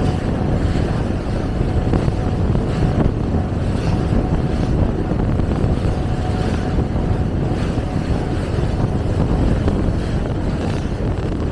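Tour boat's engine running steadily underway, a constant low rumble with wind buffeting the microphone.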